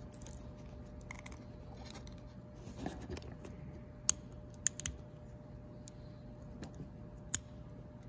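Steel depinning pick scraping and clicking against a small plastic wiring-harness connector as it is levered in to pry up the connector's primary lock: faint scratching with a few sharp clicks, about four seconds in and again near the end.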